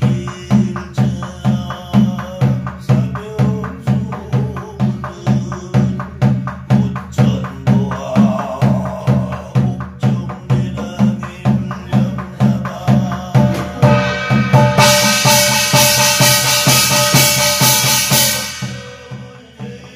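Korean barrel drum (buk) beaten in a steady rhythm of about two strokes a second, accompanying shamanic scripture chanting. From about fourteen seconds a brass gong rings loudly over the drum for some four seconds, then fades.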